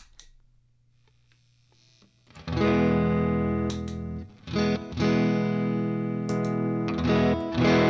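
Electric guitar played through a Minotaur overdrive pedal: after a faint hum, chords are strummed and left ringing, starting about two and a half seconds in and restruck twice.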